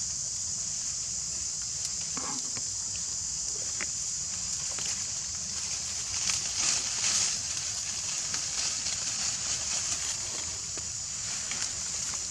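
Steady high-pitched drone of insects, swelling for a moment about six seconds in, with a few faint clicks and rustles.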